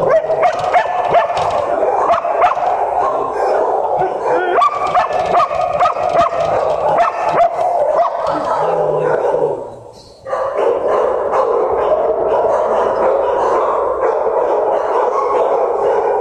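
Many dogs barking and yipping at once in shelter kennels, a loud continuous din of overlapping barks. It drops away briefly about ten seconds in.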